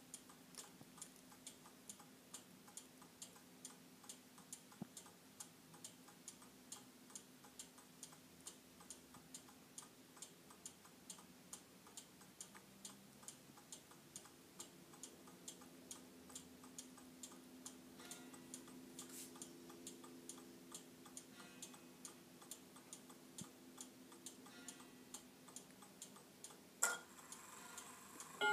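Seth Thomas mantel clock with a 124 chiming movement ticking steadily and softly. Near the end a single much louder click sounds, the chime mechanism being released just before the clock chimes the hour.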